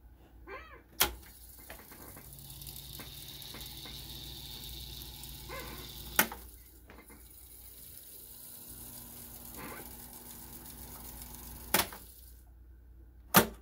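Dokorder 1120 three-motor reel-to-reel tape deck working through its transport controls: four sharp clunks of the transport buttons switching modes, with the motors whirring and the tape rushing steadily as the reels wind between the clunks. The whirr changes pitch at the second clunk and stops at the third.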